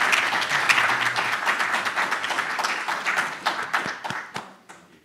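A small audience clapping, the applause thinning out and dying away near the end.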